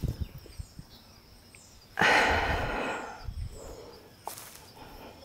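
A person's loud breathy exhale, starting suddenly about two seconds in and fading out over a second or so.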